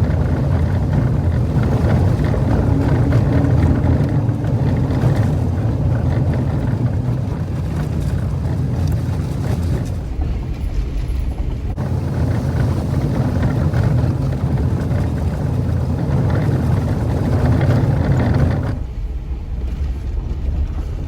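Jeep Wrangler driving on a dirt off-road trail: a steady low engine drone with tyre and road noise, easing off somewhat near the end.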